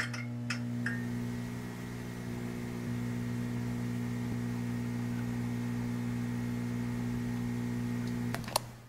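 Electrical buzz of a neon sign: a steady hum with a thin high whine over it, crackling with a few clicks as the sign flickers on and clicking again near the end as the hum cuts off.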